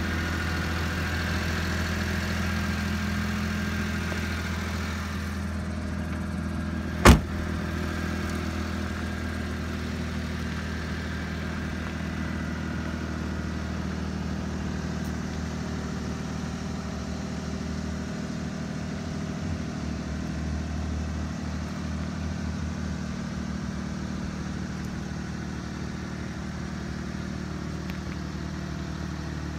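Mitsubishi Minicab kei truck's engine idling steadily, with one sharp knock about seven seconds in.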